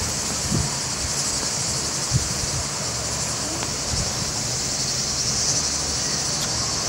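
A steady, high-pitched chorus of cicadas, with a few brief low thumps of wind or handling on the microphone.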